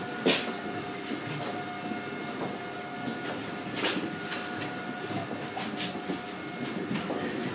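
Steady rumbling background with a faint held hum, broken by a few sharp knocks, about once near the start and twice about four seconds in.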